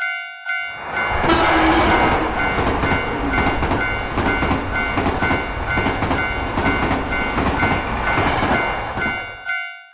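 Railroad crossing warning bell ringing about twice a second, then a train passing with a rhythmic clickety-clack of wheels on the rails for about nine seconds, the crossing bell still ringing under it. The train noise stops just before the end, leaving the bell.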